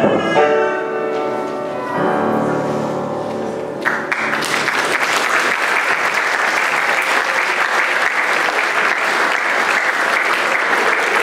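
A middle-school choir with upright piano ends a song, its final chord ringing out, then the audience breaks into steady applause about four seconds in.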